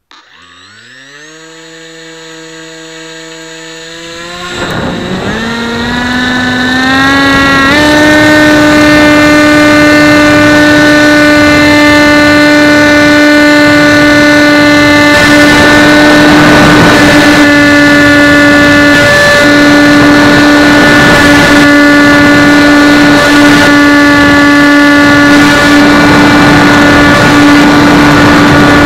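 Electric motor and propeller of an AXN Floater Jet foam RC plane, heard through a keychain camera on board. The motor spins up, its whine rising in pitch in a few steps over the first eight seconds to full throttle, then holds one steady pitch through the climb. Rushing air on the microphone grows in from about four seconds in.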